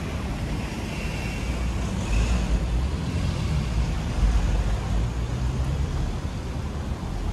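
Street traffic: a steady low rumble of passing cars, swelling from about two seconds in and easing off again after about five seconds.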